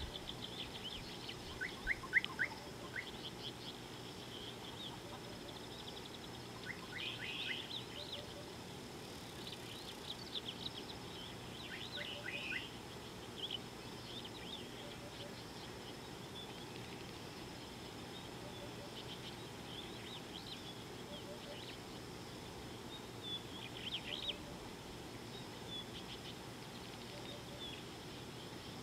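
Wild birds calling: short high chirps scattered throughout, with quick runs of rapidly repeated notes about 2, 7 and 12 seconds in, over a faint steady high hum.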